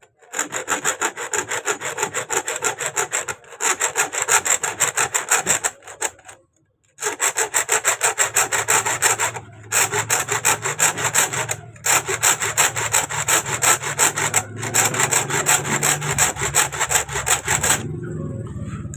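Hand-held hacksaw blade sawing through the steel screw of a sewing machine's broken needle clamp, flush against the needle bar: fast, short metal-on-metal strokes. The strokes come in several runs with brief pauses, the longest about six seconds in, and stop about a second before the end.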